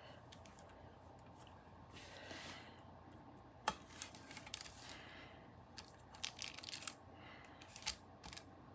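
Hands shifting and turning a sheet of polymer clay on paper: a soft rustle of the paper, then a scatter of small clicks and taps, busiest from about four to seven seconds in.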